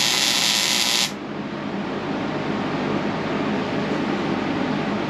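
Wire-feed welder arc laying a tack weld on steel truck frame rail: a loud, even frying hiss that cuts off abruptly about a second in, leaving a quieter steady background hiss.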